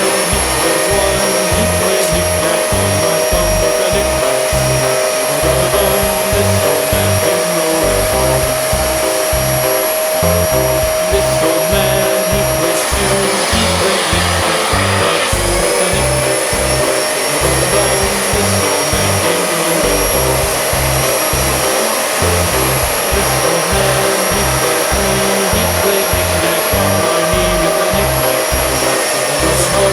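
Background music with a steady beat over the steady whine of a vacuum cleaner motor used for upholstery cleaning; the motor's pitch dips briefly about halfway through, then comes back up.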